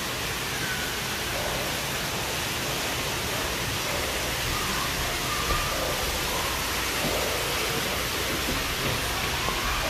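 Steady rushing hiss of running water from an indoor rock pond water feature, with faint voices in the background.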